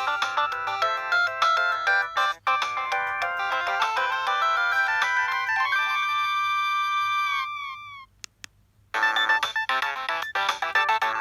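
Built-in ringtones of a Samsung SGH-D600 mobile phone: a quick electronic melody of several notes at once ends on a held chord that slides down in pitch, and after about a second's pause the next ringtone starts.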